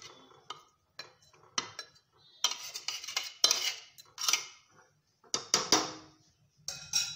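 A metal spoon clinking and scraping against a cooking pot while a curry is stirred: about ten separate strokes at an uneven pace, each ringing briefly.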